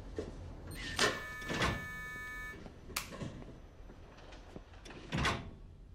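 A keycard swiped through a security door's card reader: a couple of sharp clicks, then a steady electronic beep, followed by a door latch thunk and another knock near the end.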